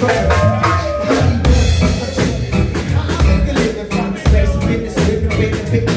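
A live band playing a song: a drum kit keeping a steady beat with bass drum and snare hits, under electric bass and strummed acoustic guitar.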